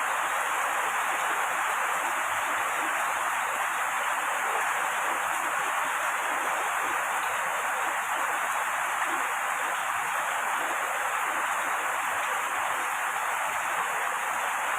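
Steady, even rain noise with no breaks or changes in level.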